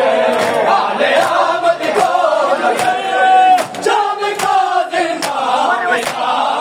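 A crowd of men chanting together during matam, with a steady beat of open-hand slaps on bare chests falling a little faster than once a second in time with the chant.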